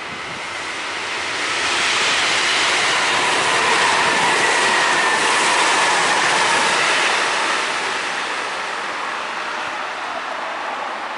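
Train passing along the track: the running noise builds over the first two seconds, stays loud for about five seconds, then fades. A faint high whine drops slightly in pitch as it goes by.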